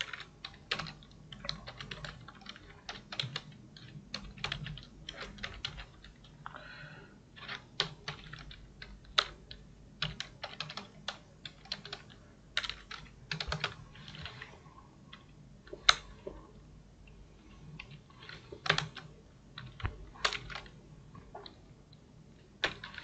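Typing on a computer keyboard: irregular keystrokes in quick runs with short pauses between them.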